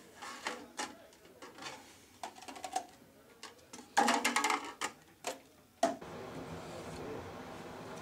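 Clattering and tapping of empty aluminium beer cans and red plastic cups being gathered up on a countertop, with a burst of crinkling plastic about four seconds in as the cups are crushed together. After about six seconds the clatter stops and a steady low hum takes over.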